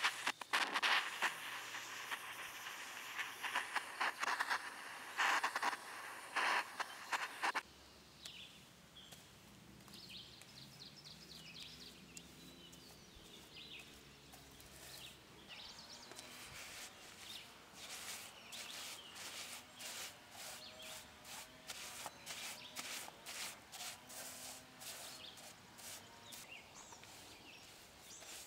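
Blowtorch flame hissing and crackling against the end grain of a wooden post as it chars the wood, stopping abruptly about seven seconds in. After that, quieter repeated stiff-bristle brush strokes, two or three a second, scrubbing the charred, tar-coated wood.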